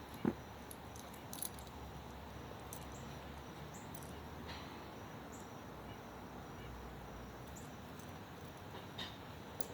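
Quiet, steady background hiss with a soft thump just after the start and a few faint, short high clicks.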